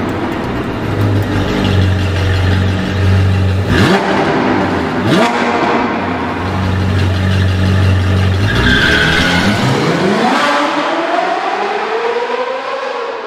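Sports car engine sound effect: the engine revs hard, with two quick rising revs about four and five seconds in and a long climbing rev near the end.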